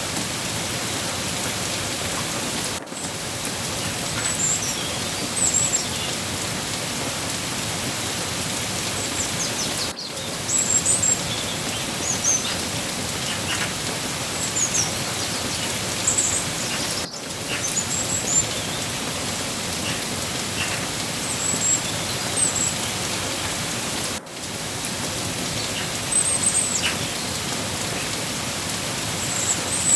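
Steady rain falling, an even hiss, with scattered brief high bird chirps. The sound drops out for a moment about every seven seconds, where the recording loops.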